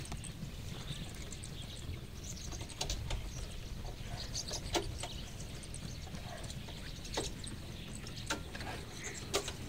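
A low steady rumble under scattered short, sharp calls from the birds of prey flocking overhead, the clearest of them about 5, 7, 8 and 9 seconds in.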